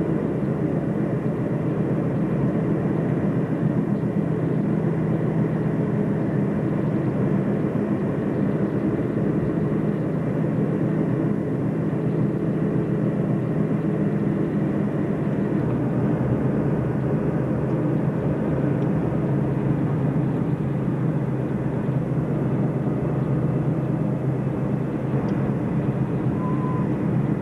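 Steady low road and engine noise inside a moving car's cabin, with no change in level throughout.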